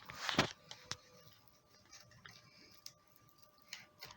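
Screen spline roller's grooved wheel pressing the rubber spline into a window screen frame's channel: faint scattered clicks and rubs, with one louder rub about half a second in.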